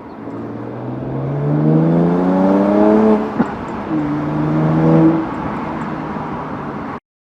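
BMW 335i's twin-turbo N54 straight-six with an M Performance exhaust accelerating, its pitch climbing for about two seconds. A click comes as it upshifts to a lower pitch, holds briefly, then eases off. The sound cuts off suddenly near the end.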